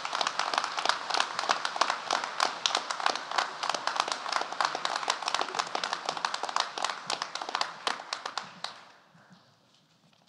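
Crowd applause, many hands clapping at once, dying away about nine seconds in.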